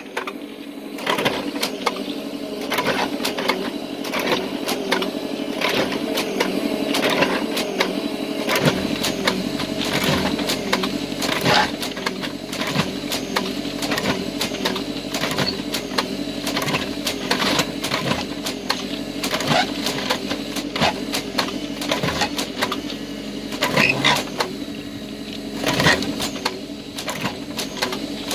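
Pandrol CD300 IQ hydraulic clip driver at work on rail fastening clips: a steady hydraulic and engine drone with many sharp metallic clicks and clanks from the clipping mechanism.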